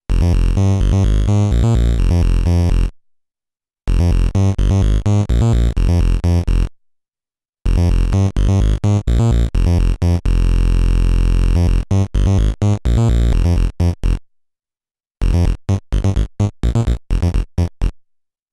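Amiga OctaMED synth instrument playing a sequence of short pitched notes in repeating phrases, each broken off by about a second of silence, with one longer held low note partway through. Its volume-list envelope holds each sound at full volume for one line, then fades it out by a change-down command.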